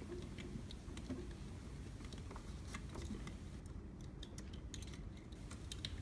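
Scattered light clicks and rattles of a fridge compressor's plastic start relay and overload being pushed onto its terminals, over a low steady hum.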